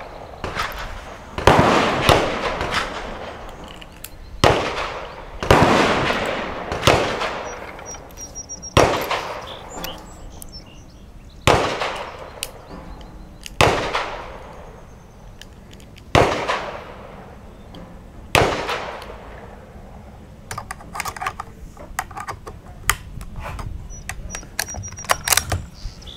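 About ten gunshots from other firing positions on the range, irregularly spaced one to three seconds apart, each followed by an echoing tail. In the last few seconds there are only lighter clicks and knocks.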